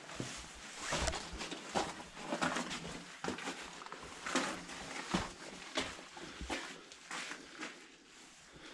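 Footsteps crunching on gravel and rubble over a concrete tunnel floor, about one step a second, echoing off the concrete walls.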